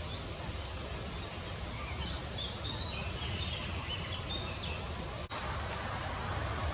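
Steady outdoor wind noise with low rumble. A small bird twitters in quick high notes for a few seconds in the middle.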